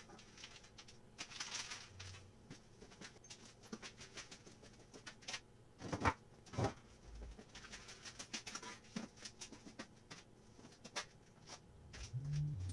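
Faint scattered clicks and light knocks as objects are handled and set down on a steel beam, with two sharper knocks about six seconds in and a few low thuds near the end.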